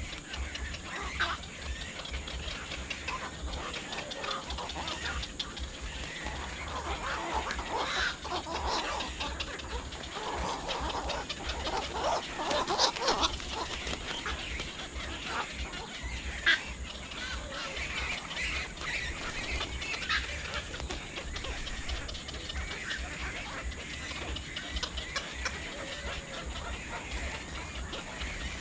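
Birds calling: many short, scattered calls over a steady low rumble, busiest in the middle.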